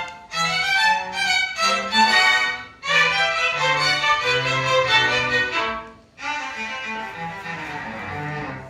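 Music: a violin-like bowed melody of sustained, sliding notes over a bass line, breaking off briefly about six seconds in and resuming with a softer, hazier tone.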